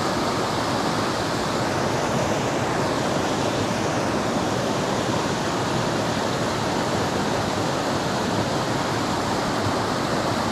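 Steady rush of creek water running over rocks.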